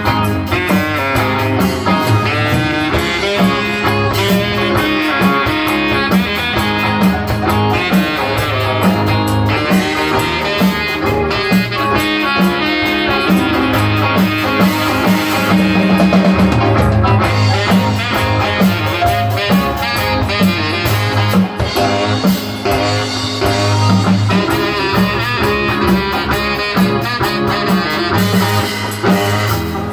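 Live band playing an instrumental number: saxophone lead over electric guitar and drum kit, with a steady, repeating bass line.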